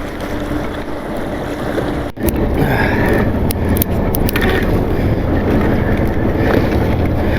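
Sportfishing boat's engine running steadily under wind and water noise on deck, dropping out briefly about two seconds in and coming back louder. A few light clicks near the middle.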